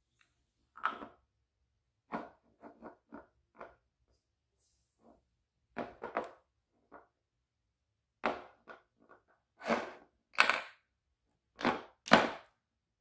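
Small plastic balls on a toy tabletop pool table knocking against each other and the table's rails as a cat paws them: a string of separate clacks and knocks, several in quick succession, the loudest near the end.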